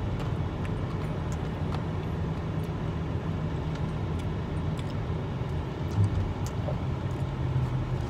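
Steady low hum inside a car cabin, with a few faint clicks.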